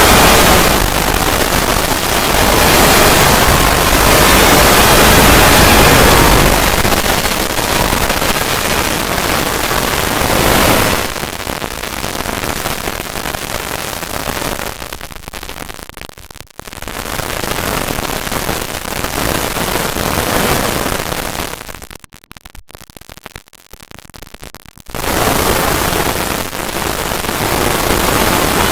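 Loud, harsh static-like noise from a distorted audio effect, spread evenly from deep to high pitch. It is loudest in the first seconds, falls back and swells again, and drops almost away for a few seconds past the middle before coming back.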